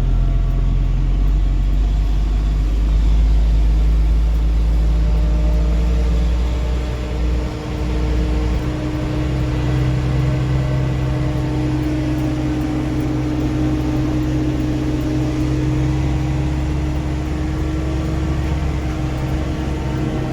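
A large engine running steadily, with a short dip about seven and a half seconds in. After the dip it settles back into a steady run with a constant hum.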